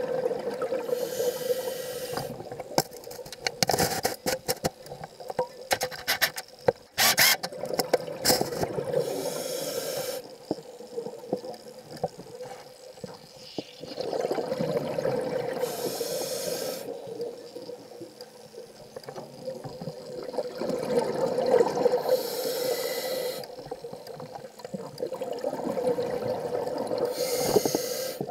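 Scuba diver breathing through a regulator underwater: a hiss on each inhale and a rush of bubbles on each exhale, about five breaths, one every six to seven seconds. A cluster of crackling clicks comes in the first third.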